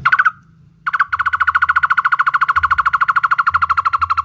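Barbet (takur) calling: a short note at the start, then after about a second a fast, even trill of rapidly repeated notes, roughly fifteen a second, held for over three seconds before it stops.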